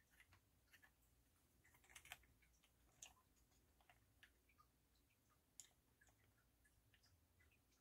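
Near silence broken by faint, irregular small clicks and ticks: the parts of a broken tonearm bearing and its tiny loose ball bearings being handled on the bench.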